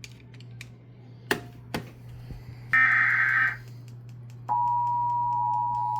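Emergency Alert System tones: a short buzzy data burst of the SAME header about three seconds in, then, from about four and a half seconds, the steady two-tone EAS attention signal, over a constant low hum. Two sharp clicks come a little over a second in.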